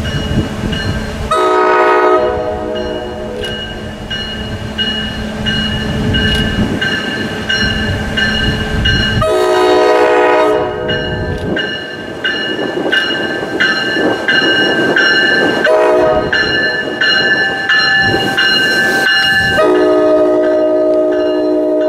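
NJ Transit commuter train with a Multilevel cab car leading, sounding its horn in the grade-crossing pattern: two long blasts, a short one and a long one. A crossing bell rings steadily underneath as the train rumbles past.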